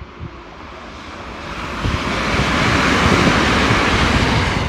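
A London Northwestern Railway Class 350 Desiro electric multiple unit passing on the main line: a rushing of wheels on rail and air that swells over about two seconds and peaks as the train draws level. Wind buffets the microphone underneath.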